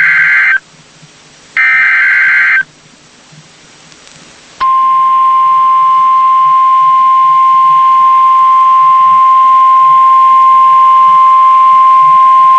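NOAA Weather Radio Emergency Alert System activation: the end of the SAME digital header, two one-second blasts of buzzy warbling data tone a second apart, then, about four and a half seconds in, the steady 1050 Hz weather radio alert tone, held unbroken. It announces an incoming severe thunderstorm warning.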